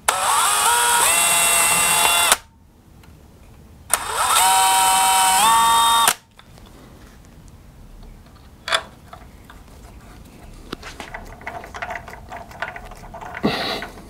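Cordless drill drilling small pilot holes in two bursts of about two seconds each, its motor whine rising in steps as it speeds up. Faint clicks and scrapes follow as screws are driven by hand with a screwdriver.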